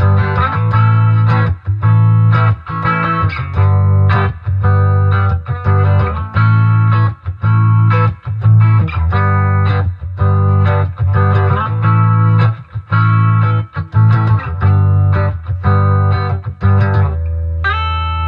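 Electric guitar through an Acoustic Control Corp 260 solid-state amp head set for a lead-and-rhythm tone with a little reverb: strummed chords in a steady, choppy rhythm with short stops between them. About a second before the end the playing changes to a held low note with single notes over it.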